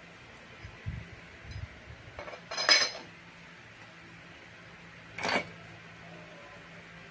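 Metal scooter CVT drive-pulley parts being handled and fitted onto the crankshaft: a couple of soft knocks, then a loud, sharp metallic clink with a brief ring near the middle, and a second clink a couple of seconds later.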